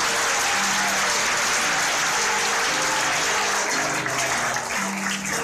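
Audience applauding, with music playing underneath in a few held notes; the clapping thins out near the end.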